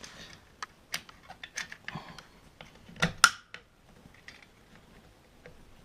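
Scattered clicks and knocks of a washing machine water pump being worked into place on its motor, with two louder knocks about three seconds in.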